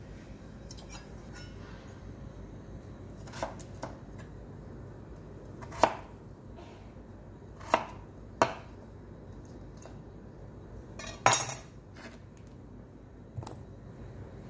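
Kitchen knife cutting peeled potatoes on a wooden cutting board: a handful of sharp, irregular knocks of the blade striking the board, a second or more apart.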